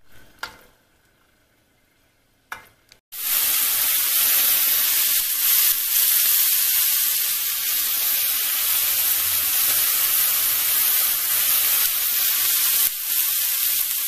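Near quiet for about three seconds, with a couple of faint taps, then, from a sudden cut, tilapia fillets frying in olive oil in a skillet: a loud, steady sizzle.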